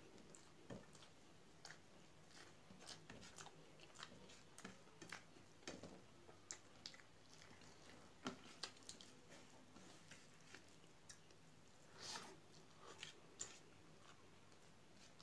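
Faint close-up eating sounds of a person chewing rice and smacking the lips, with many small irregular clicks, a few a second, as fingers work the rice on a steel plate.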